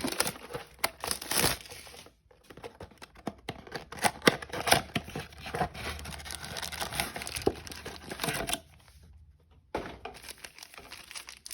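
A trading-card blaster box being unwrapped: plastic wrapping and packaging tearing and crinkling with many sharp crackles, stopping for about a second near the end before the crinkling starts again.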